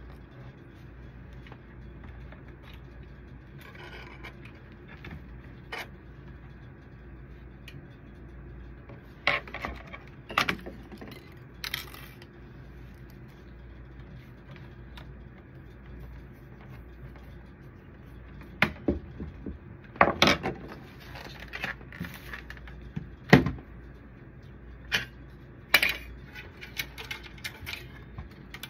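Scattered clicks, clinks and knocks of plastic and metal parts as a copier drum unit is worked on with a screwdriver and handled, in two busy spells with quiet between, over a steady low hum.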